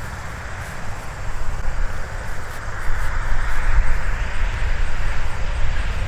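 Wind rumbling on the microphone, with a broad rushing noise that swells about two to three seconds in and then eases off.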